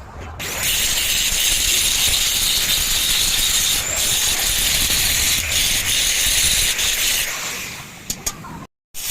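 Electric arc welding on iron grill bars: a steady, crackling hiss that starts about half a second in and stops about seven seconds in.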